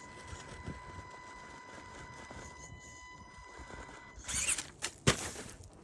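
Handling noise from work on a small RC crawler: a faint steady whine stops about four seconds in, then a brief rustle and one sharp click a second later.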